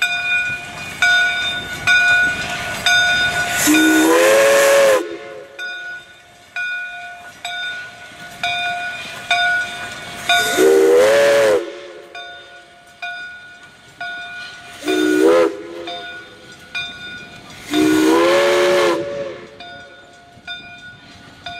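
Steam locomotive's chime whistle sounding four blasts, long, long, short, long: the grade-crossing signal as the train approaches a road crossing. Each blast slides up in pitch as it opens, and a bell rings steadily underneath throughout.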